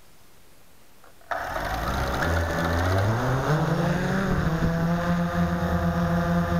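Blade 350 QX quadcopter's brushless motors and propellers starting suddenly a little over a second in, their whir rising in pitch as they spin up for takeoff, then settling into a steady hum as the quadcopter lifts off the grass. Heard from the camera mounted on the quadcopter's airframe.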